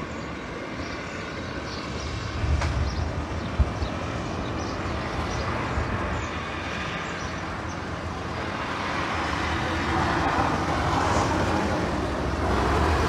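Steady outdoor background rumble picked up by a phone microphone, growing louder from about eight seconds in, with one short knock a little after three seconds.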